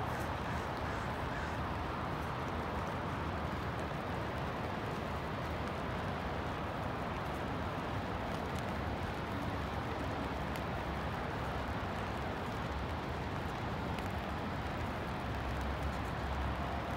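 Steady hiss of rain mixed with traffic on wet city roads, an even wash of noise with no single event standing out.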